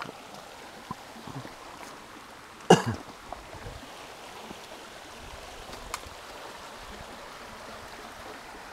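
Faint steady rush of flowing creek water, with one short, sharp sound about three seconds in and a faint click near six seconds.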